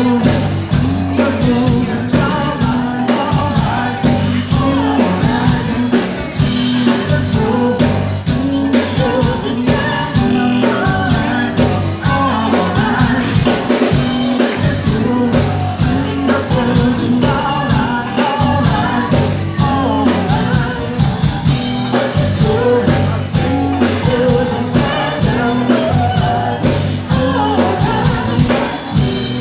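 Live band playing loud amplified music on drum kit, electric guitar and keyboard, with a woman singing.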